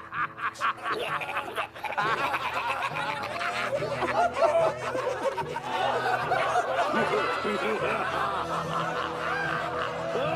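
A crowd of cartoon voices laughing and cackling together over a sustained music bed. One voice's quick ha-ha laughter at the start swells about two seconds in into many overlapping laughs.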